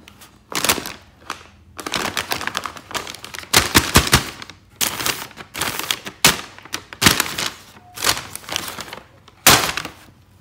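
Paper takeout bag crinkling and rustling as it is gripped and opened, in repeated loud crackling bursts with short pauses between them.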